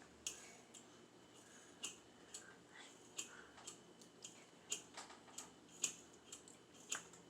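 Small plastic beads clicking and tapping as they are handled, a string of faint, sharp, irregular clicks about two or three a second.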